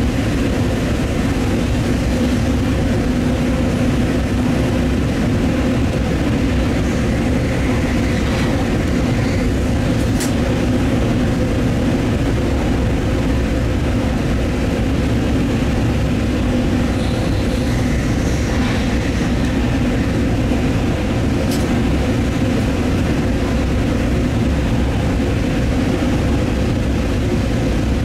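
Stadler GTW 2/6 diesel multiple unit under way, heard from the driver's cab: a steady, loud diesel drone with running noise. Two brief sharp clicks break through, about a third of the way in and again about three quarters of the way in.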